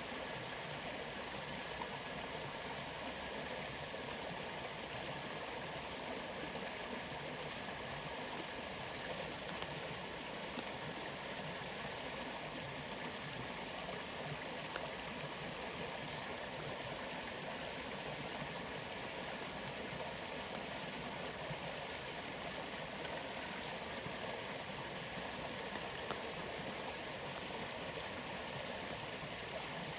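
Waterfall: a steady, even rush of falling water with no breaks or separate events.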